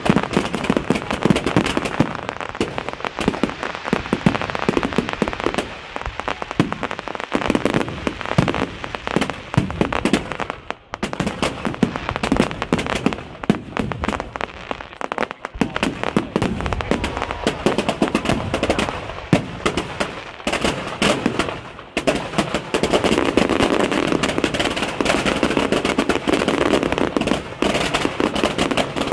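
Aerial fireworks display in full barrage: many shells bursting in quick succession, the bangs overlapping almost without a break. A few brief lulls come about halfway through, and the bursts run together more densely in the last several seconds.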